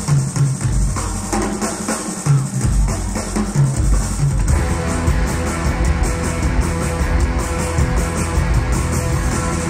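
Rock band playing live: a large drum kit with cymbals driving the music, with electric guitar, at a steady loud level.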